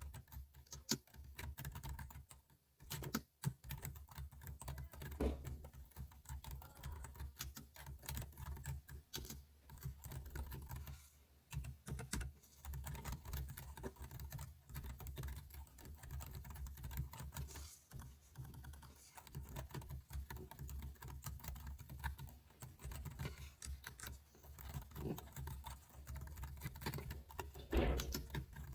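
Typing on a computer keyboard: a continuous, irregular run of key clicks with a brief pause about three seconds in.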